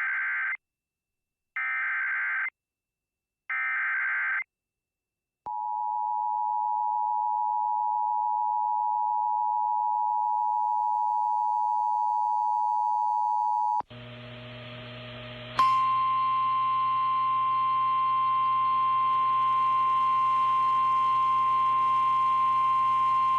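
Emergency Alert System tones: three one-second bursts of SAME header data, then the two-tone EAS attention signal held steady for about eight seconds. About fourteen seconds in, a hum-laden NOAA Weather Radio relay begins, and its steady 1050 Hz warning alarm tone sounds from a couple of seconds later until near the end.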